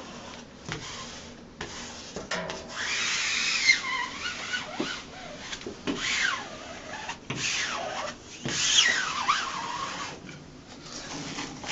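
Squeegee swept over vinyl wall wrap in several rubbing strokes about a second long each, some with a squeak that slides in pitch.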